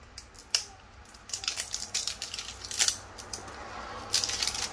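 Crinkly plastic packaging being handled and opened: a sharp click about half a second in, then a run of crackles and rustles.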